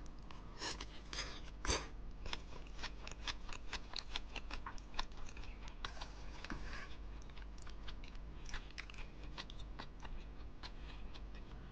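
Close-miked chewing of a mouthful of yeolmu bibimbap: a rapid run of small wet clicks and soft crunches, several a second, with a few louder mouth sounds about a second in.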